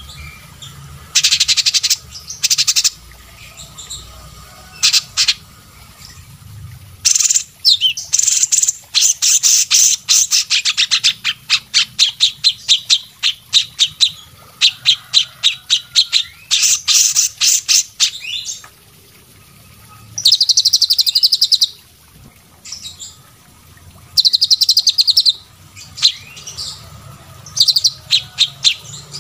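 Songbirds singing in bouts of very fast, high, rapid-fire repeated notes, some bouts lasting several seconds, with short pauses between; a faint low hum underneath.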